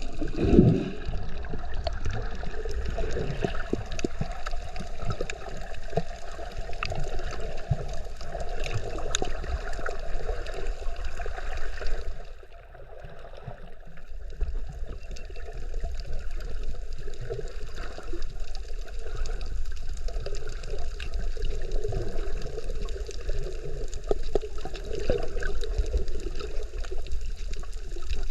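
Water sloshing and gurgling around the camera while snorkeling, a continuous muffled wash scattered with small clicks and splashes. It dips quieter for a second or two about halfway through.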